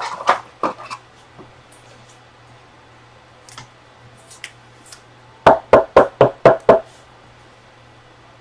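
A few light clicks, then about five and a half seconds in a quick run of six sharp knocks, about four a second, like rapping on a hard surface.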